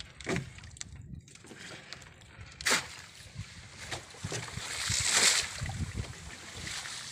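Water sloshing and splashing against a small outrigger boat, with one sharp knock about two and a half seconds in and a louder wash of water around five seconds.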